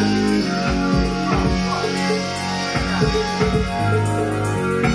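Live band playing an instrumental passage: keyboard synthesizers holding sustained notes over a low bass line, with regular drum hits.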